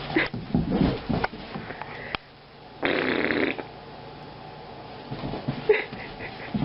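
Short noises from a dog: a few brief puffs in the first second or so, then one louder, rough, rasping burst about three seconds in.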